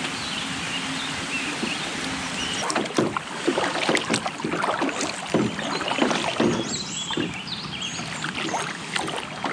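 Kayak paddling: the paddle blades dip and splash irregularly in the water over a steady watery hiss, with strokes starting a few seconds in.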